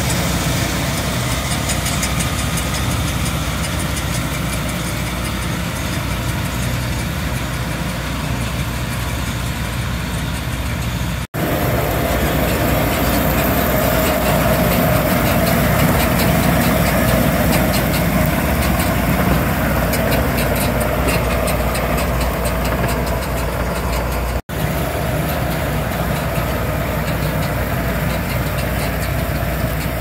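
John Deere tractor engine and potato windrower machinery running steadily, a continuous mechanical drone that drops out for an instant twice.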